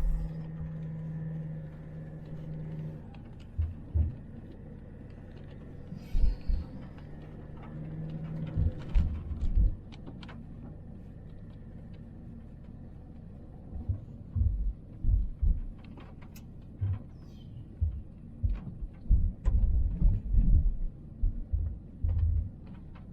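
Car driving slowly, heard from inside the cabin: a steady low engine and road hum, with irregular low thumps as the car goes over bumps, coming more often in the second half.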